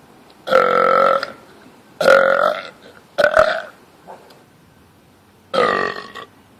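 A man belching loudly four times, each belch a drawn-out, voice-like burp lasting half a second to about a second, spaced a second or two apart.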